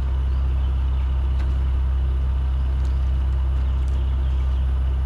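Truck engine idling, a steady low drone with a few faint ticks over it.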